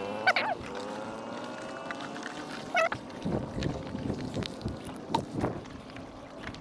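A wet nylon gill net being pulled hand over hand out of water, with water dripping and splashing off the mesh. Two short, wavering animal calls cut in, the loudest sounds, one near the start and one about three seconds in. A passing motor vehicle's engine falls in pitch and fades over the first half.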